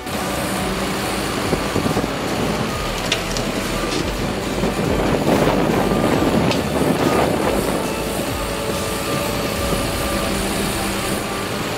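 Bucket-wheel excavator running: a steady, heavy mechanical rumble, a little louder around the middle.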